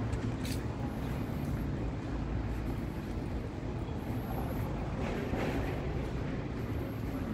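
City street ambience: a steady low rumble of traffic, swelling a little about five seconds in.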